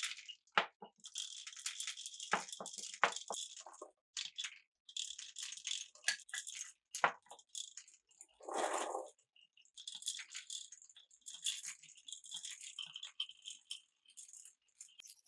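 Glass marbles rolling and clattering down a wooden and plastic marble run: a continuous rattling roll broken by sharp clicks as the marbles knock against the track pieces and each other. About nine seconds in there is a lower, hollow rolling sound lasting under a second.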